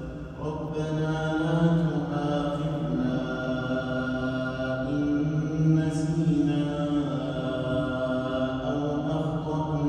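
A man reciting the Quran in melodic tajweed chant. He holds long, drawn-out notes that glide slowly in pitch, with a brief hissing consonant about six seconds in.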